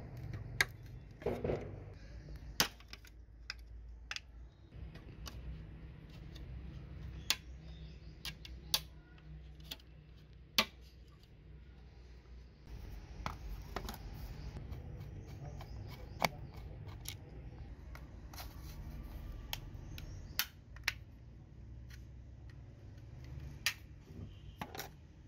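Irregular clicks and small snaps of hand tools on a hard plastic telephone housing, as pliers and a screwdriver work at it and pry it apart, over a steady low hum.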